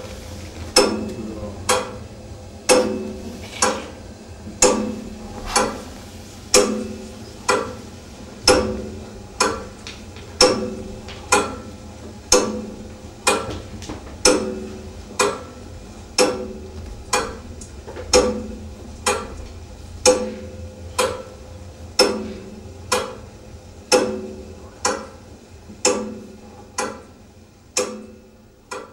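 Clock ticking: one sharp, pitched tock about every second at an even pace, the background growing fainter near the end.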